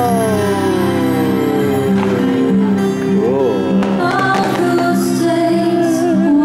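Fireworks show soundtrack music with singing, a long note sliding down in pitch over the first few seconds, and a few faint firework pops.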